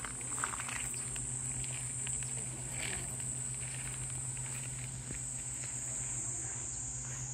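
Cicadas droning in the garden trees: one steady, high-pitched buzz with no break.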